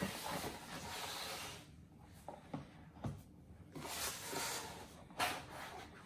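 Cardboard packaging rustling and scraping as a boxed tripod is slid out of a cardboard mailer, with a few light knocks of the box against a table.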